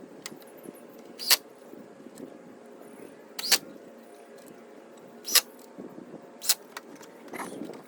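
Four sharp knocks at uneven intervals over a steady low hum.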